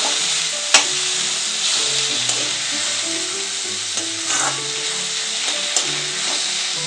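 Chopped onion and tomato sizzling in oil in an aluminium kadai as they are stirred and sautéed over a medium flame, with a steady hiss and a sharp click about a second in.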